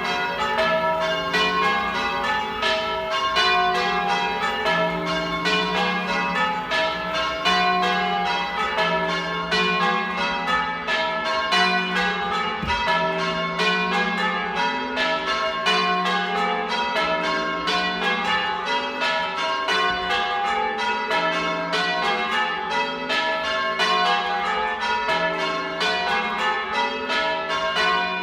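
Church tower bells rung in changes (English change ringing): a rapid, even stream of bell strikes, each ringing on into the next.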